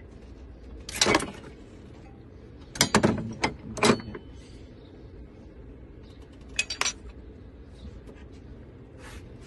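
Metal tools and engine parts clinking and clanking as they are handled, in short sharp knocks that come a few at a time with pauses between, over a steady low hum.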